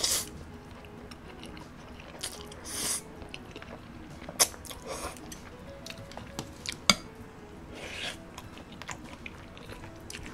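Slurping black-bean-sauce noodles (jjajangmyeon) and chewing, with a few sharp clicks of utensils against a glass bowl, over soft background music.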